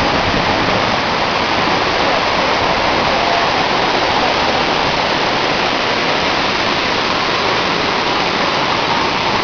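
Jog Falls, a tall plunge waterfall, pouring into its rock gorge: a steady, even rush of falling water and spray.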